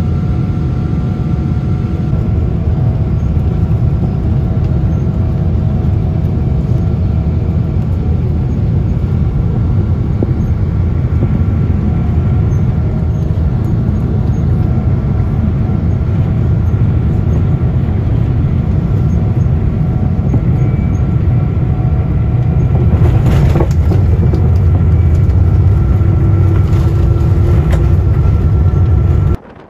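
Cabin noise inside a Boeing 777 airliner descending on approach: a loud steady low rush of engine and airflow, with a few faint steady whining tones on top. It grows a little louder in the last stretch, with a brief sharper burst of noise about two-thirds of the way through.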